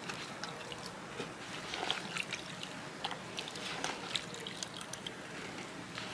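Water splashing and dripping in a plastic basin as gloved hands wash a guinea pig, with many small, irregular splashes.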